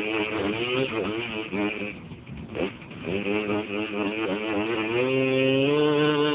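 Tuned short-stroke Honda scooter engine being revved in quick, wavering blips. The revs drop back briefly about two seconds in, then climb and hold steady at higher revs from about five seconds in.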